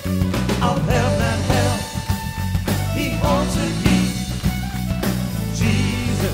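Contemporary Christian praise and worship song playing: a full band with strong bass and drum hits under wavering sung or instrumental lines.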